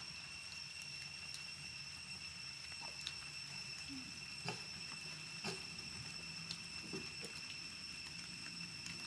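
Baby monkeys shifting about on a person's shoulder and lap: a few soft clicks and rustles and faint short sounds, over a steady high-pitched whine.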